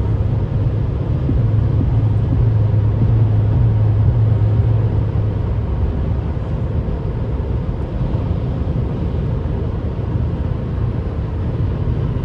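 Steady engine and tyre drone heard inside a car cruising on a rain-wet highway. A low hum is strongest over the first five seconds, then eases a little.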